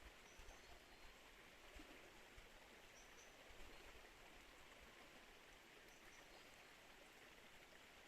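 Faint, steady rush of flowing river water, an even hiss with no change.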